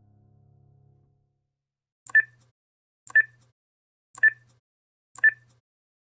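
Film-leader countdown sound effect: four short, high beeps about a second apart, each with a sharp click at its start. In the first second, the last faint notes of soft background music fade out.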